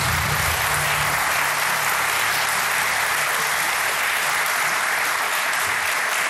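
Studio audience applauding a correct answer on a TV quiz show, a steady dense clapping throughout. The tail of a musical sting fades out under the applause about a second and a half in.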